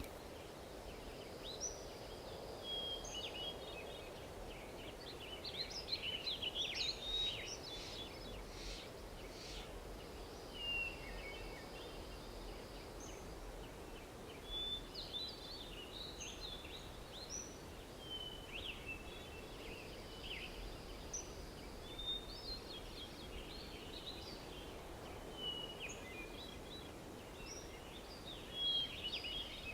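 Faint birdsong: short chirps and whistled calls in repeated phrases every few seconds, over a steady low background hum.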